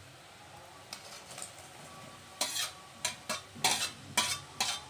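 Fried potatoes and drumstick pieces being slid from a steel plate into boiling masala gravy in a metal kadai: a faint sizzling, then about halfway in a quick run of sharp metal clanks and scrapes as the plate and spoon knock against the pan.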